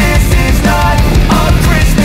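Loud hard-rock soundtrack music with a steady drum beat.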